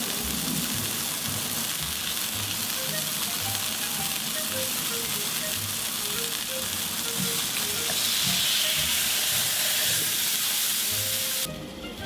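Hamburger patty sizzling as it fries on a flat-top griddle, a steady dense hiss that swells a little past the middle and cuts off sharply just before the end.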